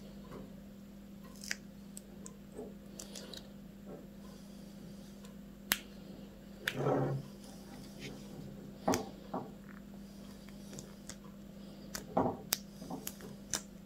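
Gorilla duct tape being wound and pressed by hand around a tin strip on an elastic head-torch strap: scattered small clicks, crackles and rustles of tape and strap handling, with a few slightly louder rustles at intervals. A faint steady hum runs underneath.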